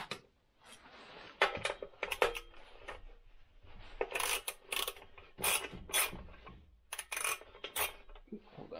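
Socket wrench clinking against bolts and the metal fan housing of a snowmobile engine as parts are unbolted: a string of sharp, irregular metallic clicks and clanks, some in quick pairs.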